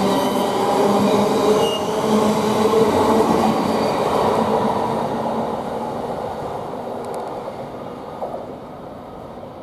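Thameslink Class 700 electric multiple unit pulling away from the platform: wheel-and-rail running noise with a steady motor hum, fading away over the last few seconds as the train leaves.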